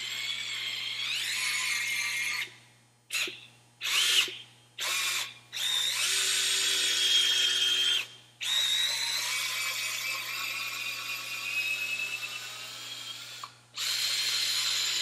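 Snap-on 14.4 V brushless cordless drill driving an 8 mm reamer through a newly pressed-in brass valve guide, cutting it to fit the valve. It runs in on-off bursts: a high whine that stops and starts several times, with short blips about three to five seconds in and longer runs after.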